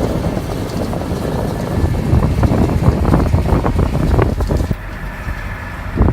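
Allis-Chalmers 7060 tractor's diesel engine running, with heavy wind buffeting on the microphone; the sound drops in level near the end.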